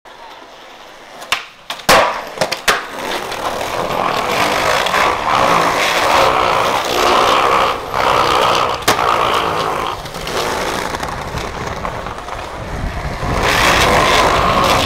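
Skateboard wheels rolling over pavement and sidewalk tiles, with a few sharp clacks of the board striking the ground in the first three seconds and one more near nine seconds.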